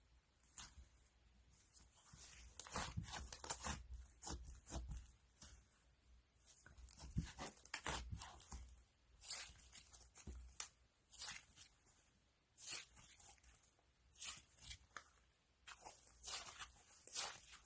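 Crunchy slime being squeezed and pressed by hand, giving off irregular crackling clicks and pops in clusters with short quieter gaps.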